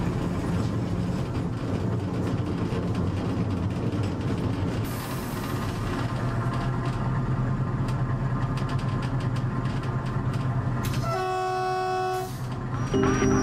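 V36 diesel locomotive running steadily under way, its engine drone heard from the cab with wheels clicking over the rails. About eleven seconds in, one horn blast of just over a second, sounded at a whistle board before a level crossing.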